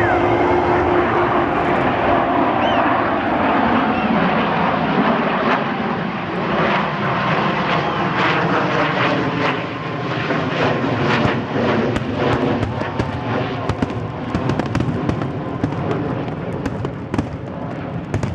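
B-2 Spirit stealth bomber passing overhead, its four turbofan engines making a steady, broad noise. From about six seconds in, sharp bangs go off, growing more frequent toward the end.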